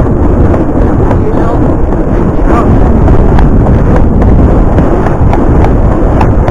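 Loud, rumbling wind buffeting a helmet-mounted action camera's microphone while riding a horse at speed, with short knocks mixed in.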